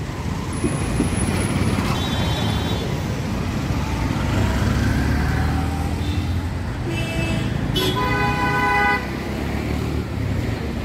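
Street traffic running steadily, with vehicle horns honking: a short toot about two seconds in and a longer, louder horn blast lasting about a second near the end.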